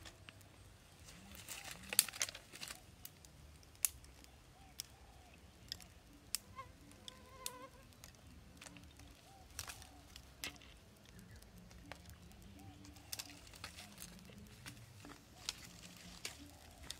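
Small fire of dry twigs and leaves crackling, with irregular sharp pops and snaps spread throughout, the loudest about two seconds in.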